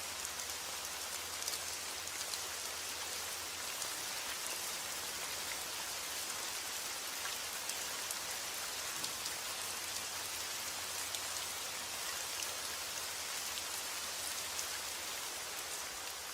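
Steady rain falling: a dense, even hiss with scattered sharp ticks of single drops.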